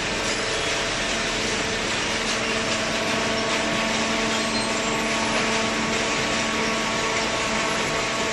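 Hydraulic baler running: a steady machine hum of several constant tones over a broad hiss, with no change in pitch or level.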